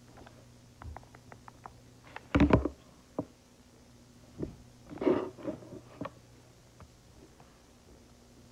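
A handheld game console being handled and its buttons and touchscreen tapped: a quick run of small clicks, a louder thump about two and a half seconds in, then more knocks and rustling around the middle. A faint steady hum runs underneath.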